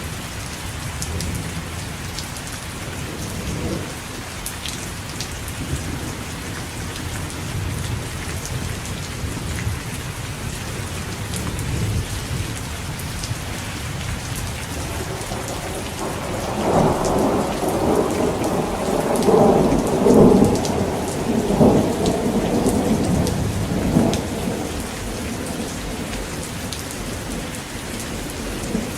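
Steady rain falling on a surface, with scattered drop ticks. About halfway in, a rolling rumble of thunder swells up several times, is loudest a little past the middle, and dies away shortly after.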